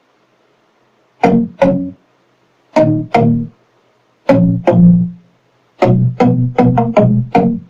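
Instrumental music with plucked notes, played through a JBL Go Plus single-speaker portable Bluetooth speaker. After about a second of quiet come three pairs of notes, then a quicker run of notes near the end.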